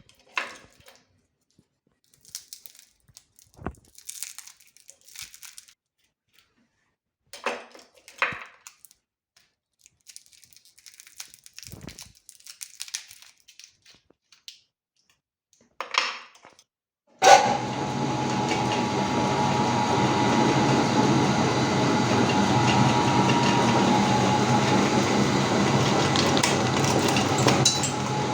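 Scattered clicks and rustles of handling for about the first half, then an electric meat grinder switches on abruptly and runs steadily with a constant hum.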